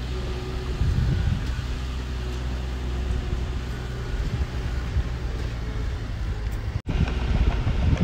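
Heavy diesel engine of earthmoving machinery running steadily with a low drone. The sound drops out for an instant near the end.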